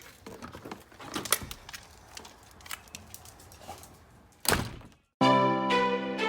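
Scattered light clicks and knocks, then one loud thump about four and a half seconds in. After a brief cut to silence, background music with sustained pitched notes starts abruptly near the end.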